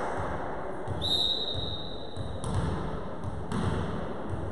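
A referee's whistle blown once, a steady high tone lasting just over a second, the signal for the serve. Then a volleyball bouncing twice on the wooden gym floor, about a second apart.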